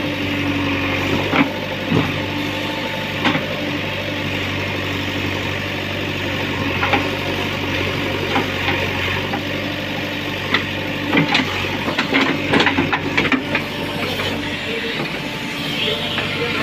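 JCB 3DX backhoe loader's diesel engine running steadily, with scattered sharp knocks and clanks over it that come thick and fast about two-thirds of the way through.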